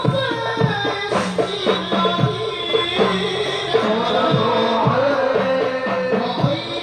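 Devotional sholawat singing accompanied by hand-played drums beating a steady rhythm.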